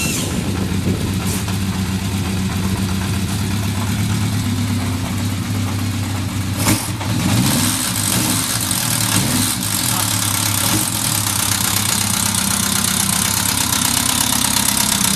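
Kawasaki Z550's air-cooled inline-four engine idling steadily just after an electric-start, running with the tank and seat removed. It rises briefly in pitch about seven seconds in, then settles back to a stable idle.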